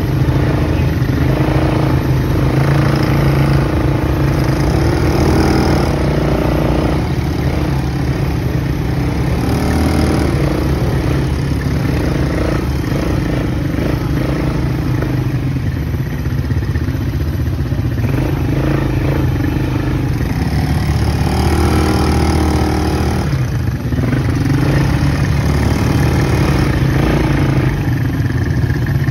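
ATV engine running under load on a dirt trail, its note rising and falling with the throttle several times.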